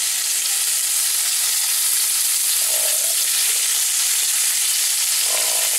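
Fluke (summer flounder) fillets frying in butter in a cast-iron skillet: a steady, even sizzle.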